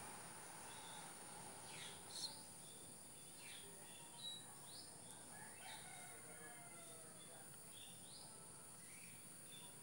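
Faint background of birds calling, including a distant rooster crowing, over a steady high insect hum. A light click comes about two seconds in.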